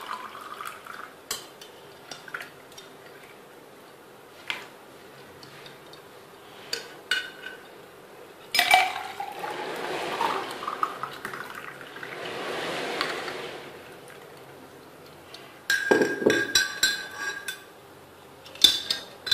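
Plum sharbat poured from a glass jug full of ice cubes into a drinking glass: a few seconds of liquid splashing into the glass starting a little before halfway, with scattered clinks of ice and glass, and a quick run of clinks near the end.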